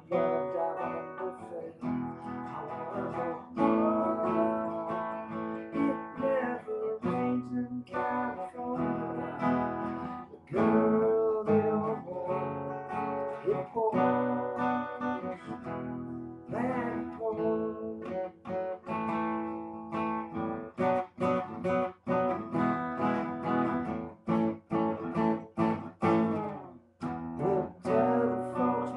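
Acoustic guitar being strummed and played, with chords and notes that now and then bend in pitch.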